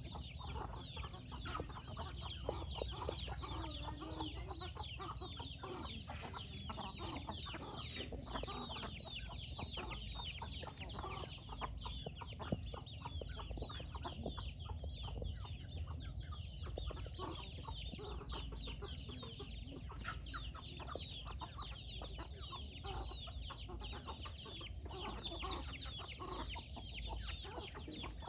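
Flock of chickens, a hen with half-grown chicks, feeding: a continual stream of quick high peeps mixed with soft clucks. A steady low rumble lies underneath.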